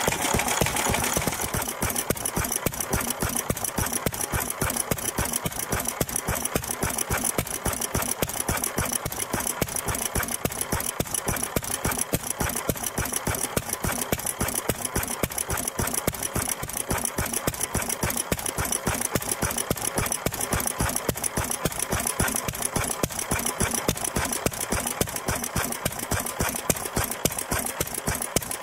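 1926 International Harvester M type 3 hp single-cylinder stationary engine running on a petrol-kerosene mix, a steady rhythmic mechanical clatter.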